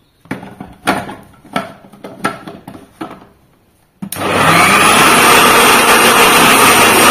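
A handful of knocks, then about four seconds in a mixer grinder's motor starts abruptly and runs steadily at high speed, blending aloe vera and orange in the juicer jar.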